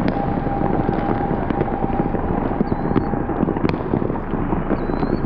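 Many fireworks going off at once across the area: a dense, unbroken crackle of pops with sharper bangs here and there, over a low rumble. A faint steady tone runs through the first half.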